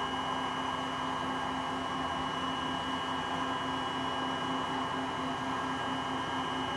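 Steady hiss and electrical hum of background noise, with a constant low hum and faint high-pitched tones and no distinct events.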